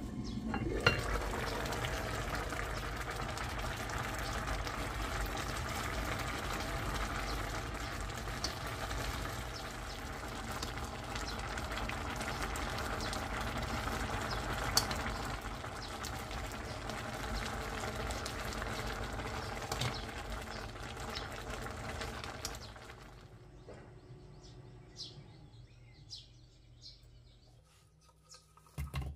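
A bracken-and-bean braise bubbling at a simmer in a pan, with a clink of the glass lid about a second in and a spoon stirring through the stew. Partway through the second half it drops to a much quieter stretch with a few light clicks.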